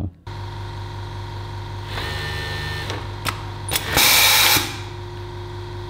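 Industrial overlock machine (serger) running: a steady motor hum, with short runs of stitching, the loudest about four seconds in, and a click in between. The machine is overlocking a freshly attached waistband seam.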